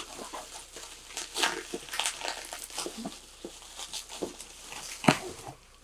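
Packing wrap crinkling and rustling in irregular crackles as it is pulled off a heavily wrapped boxed vinyl figure by hand.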